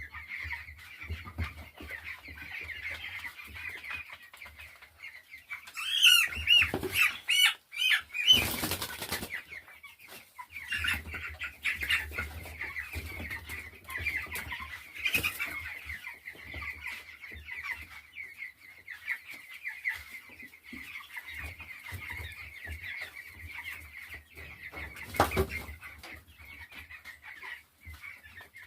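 A crowd of three-week-old chicks peeping without a break. About six to nine seconds in there are louder cheeps and a cluster of sharp knocks and flapping, and there is another sharp knock near the end.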